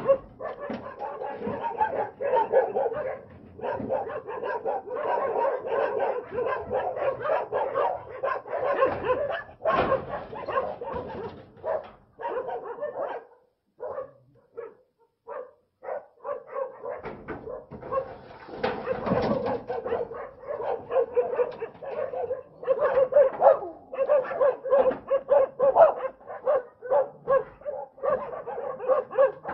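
A dog barking in quick, repeated barks, with a lull of a few seconds around the middle in which only a few short knocks are heard.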